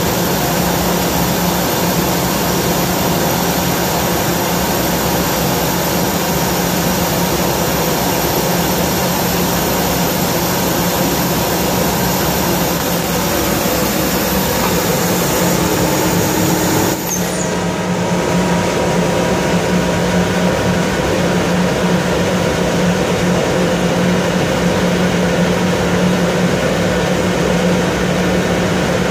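Kaeser AS 31 25 hp rotary screw air compressor running with a loud, steady drone and a deep hum. A little over halfway through, a high hiss cuts off abruptly and the running sound shifts, then carries on steadily.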